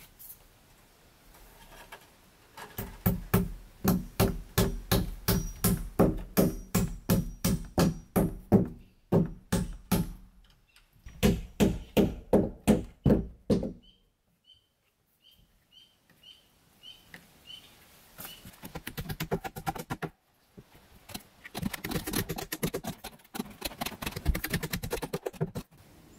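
A staple hammer driving staples through wire mesh into the logs: runs of quick, evenly spaced knocks, a pause, then a faster stretch of knocking near the end.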